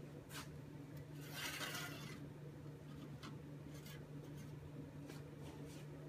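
Glass shot glass scraped across a stainless steel espresso drip tray grate about a second in, with a few light clicks of glass on metal before and after. A steady low hum runs underneath.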